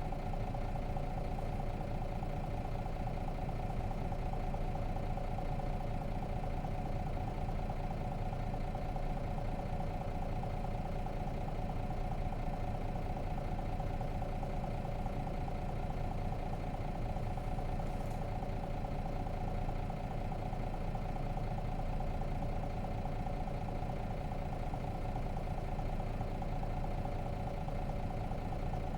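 Nissan Diesel RM bus's FE6 inline-six diesel engine running at a steady, unchanging pitch, heard from inside the passenger cabin.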